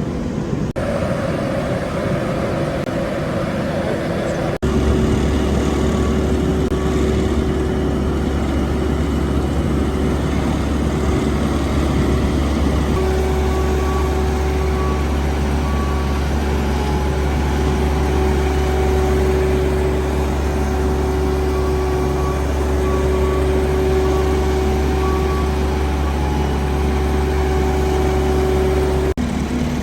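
Heavy road-construction machinery running: a steady diesel engine drone with a deep hum. The sound changes abruptly a little under a second in, again about four and a half seconds in, and near the end.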